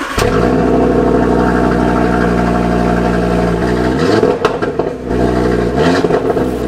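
Audi RS3's 2.5-litre turbocharged five-cylinder engine cold-starting: it catches right at the start and settles into a loud, high cold-start idle heard at the exhaust. The engine note dips about four seconds in and climbs again near six seconds.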